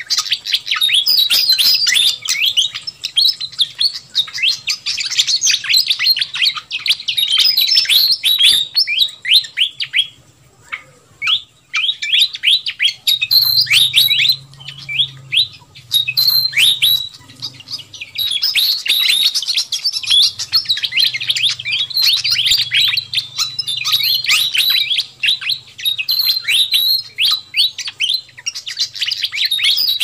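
Pied fantail (sikatan kipas) lure call: a busy, noisy chatter of quick, squeaky, downward-sweeping chirps in a near-continuous stream, with a brief lull about ten seconds in.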